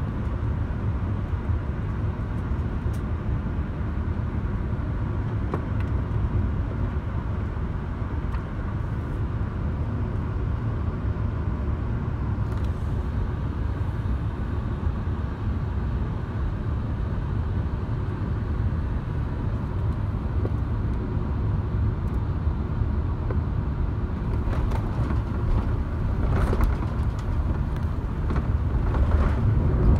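Steady low rumble of airflow and the Airbus A380's Engine Alliance GP7200 engines, heard inside the cabin on final approach, growing louder over the last few seconds.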